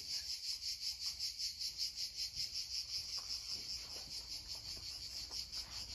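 Insects chirping in a steady, high-pitched pulsing chorus, faint.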